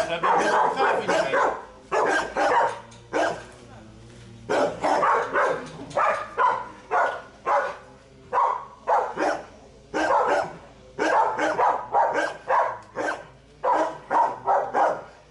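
A dog barking over and over in short, separate barks, at times several a second, with a brief lull about three seconds in.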